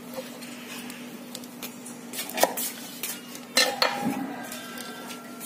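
Metal kitchen utensils clinking and knocking on a cutting board: scattered light clicks, with louder sharp knocks about two and a half and three and a half seconds in, the later ones ringing briefly. A steady low hum runs underneath.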